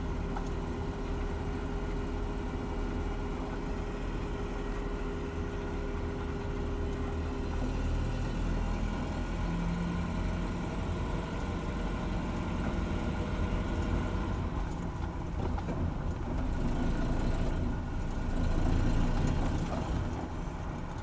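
Pickup truck's engine and drivetrain running as it is driven, heard from inside the cab, on its first drive with a new clutch and a replacement transmission being run through the gears.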